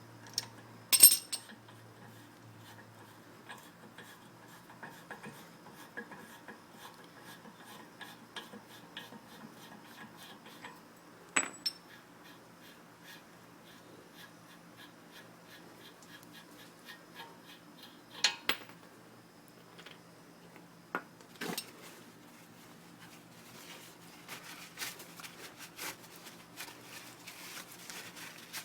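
Light ticks and clicks scattered throughout, with four louder, sharp metallic clinks and the ticking growing denser near the end.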